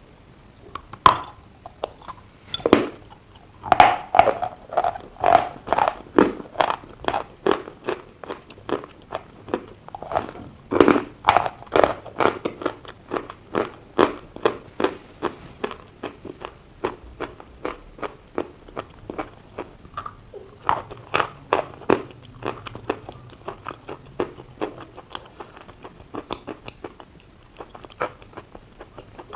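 A person biting and chewing dry chalk coated in clay paste, with loud crisp crunches over the first dozen seconds settling into a steady chewing rhythm of about two to three crunches a second.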